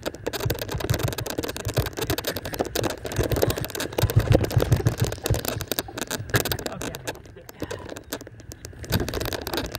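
Golf cart driving over uneven ground, its body and dash rattling with a dense run of clicks and knocks over a low rumble.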